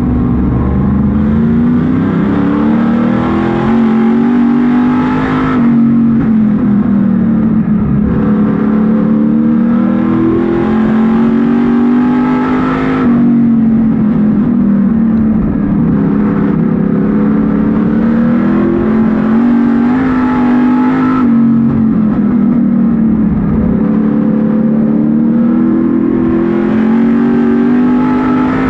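Street stock race car engine heard from inside the cockpit at racing speed. Its pitch climbs and then falls away sharply about every seven or eight seconds, rising along each straightaway and dropping as the driver lifts for the turns of the oval.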